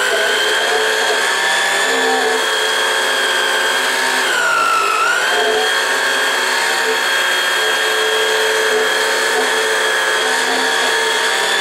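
1990s Kenmore sewing machine's electric motor running with a steady high whine while the needle stays still, a fault the owner blames on a failed gearbox. About halfway through, the pitch dips briefly and then comes back up.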